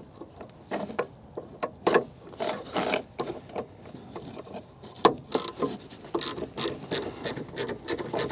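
Scraping, rubbing and clicking of hands working plastic and metal tail-light parts loose, in irregular strokes and then a quicker run of clicks from about five seconds in.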